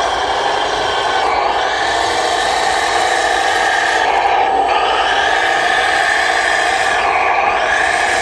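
A machine's engine running steadily with a whir, with brief dips about every three seconds.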